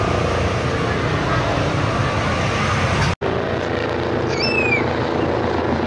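Steady outdoor rumble with faint voices in it, broken by a sudden, brief dropout a little after three seconds; a short high chirp comes about a second later.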